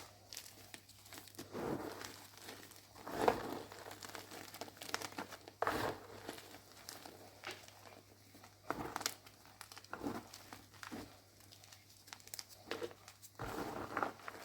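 Blocks of gym chalk being crushed and crumbled by hand, giving irregular crunching and crumbling with a few louder crunches scattered through.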